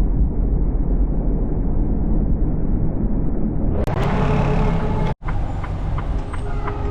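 Steady low rumble of a semi truck's engine and road noise heard inside the cab. About four seconds in the sound changes abruptly to a fuller, brighter drone, with a brief dropout a second later.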